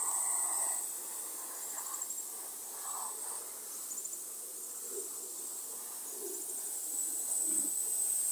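Insects giving a steady, high-pitched buzzing drone that swells near the start and again towards the end.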